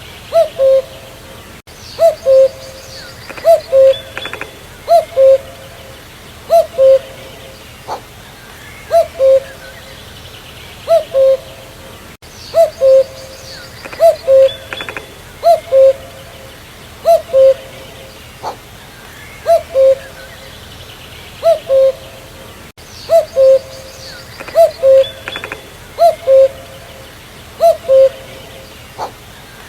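Common cuckoo (Cuculus canorus) calling its two-note "cuck-oo", a higher note then a lower one, repeated about every second and a half. Fainter chirps of other birds sound behind it.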